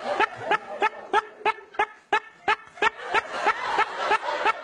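A man laughing in short, even staccato bursts, about three a second, kept up as a steady rhythmic laugh.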